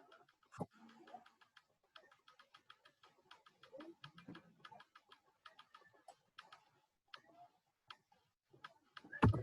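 Irregular clicking of a computer keyboard and mouse, several clicks a second with short gaps, and one louder dull thump near the end.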